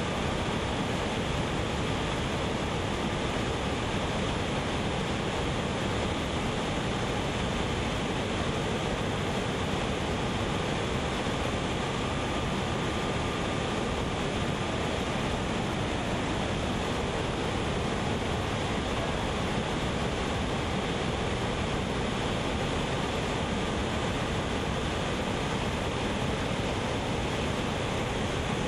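Steady roar of heavy whitewater rushing over falls and rapids, an even, unbroken rush of water.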